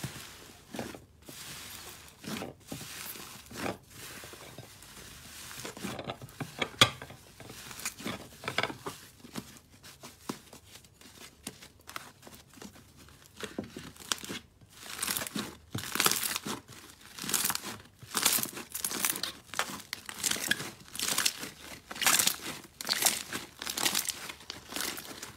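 Thick pink fluffy slime being squeezed, pressed and pulled apart by hand in a glass bowl, giving a run of short crackling, tearing sounds. About halfway through, the pulls come louder and in a steady rhythm of roughly one to two a second.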